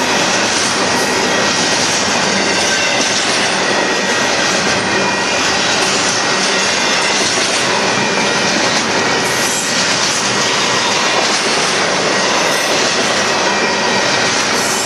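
Union Pacific double-stack intermodal container cars rolling past: a loud, steady rush of steel wheels on the rails.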